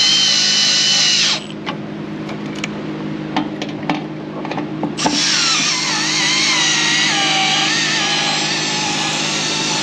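Makita brushless cordless drill driving in the screws that hold a motor controller. Its motor whine stops about a second in, a few light clicks follow, then a second, longer run starts about five seconds in, its pitch wavering and falling before holding steady.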